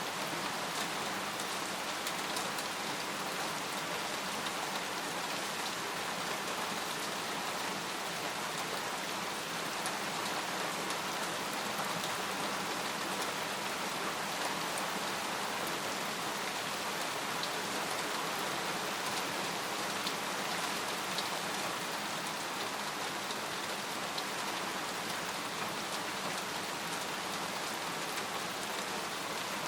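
Steady rain falling on a tent, with many small drop hits ticking over an even hiss.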